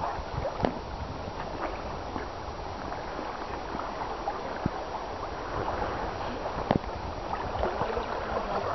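Water lapping against the hull of a small boat moving under sail, with a few sharp knocks, the clearest about half a second in and near seven seconds.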